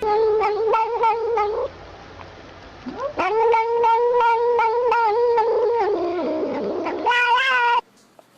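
A dog howling in three long drawn-out calls. The middle call is the longest, held for about three seconds, and the last is short and wavering. The howling cuts off abruptly shortly before the end.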